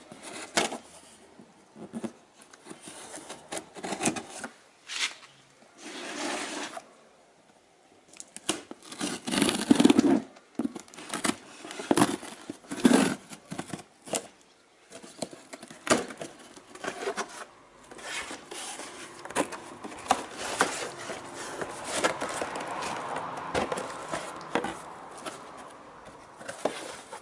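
A pocket-knife blade scraping and slitting packing tape on a cardboard box, with short tearing and scraping strokes and clicks. In the second half, cardboard flaps and packing rustle more steadily as the box is opened and handled.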